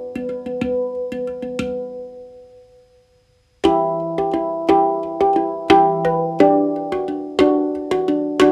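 Handpan music: struck steel notes ringing out and decaying in a steady rhythmic melody. It fades to silence about three seconds in, then starts again abruptly with a fuller passage.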